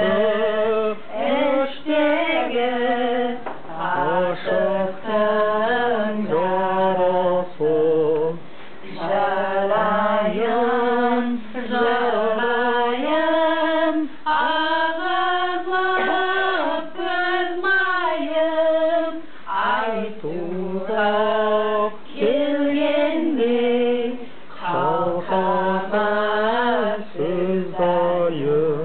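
Women singing a song in Kazakh together, holding and bending long notes in phrases of a few seconds with short breaks between them.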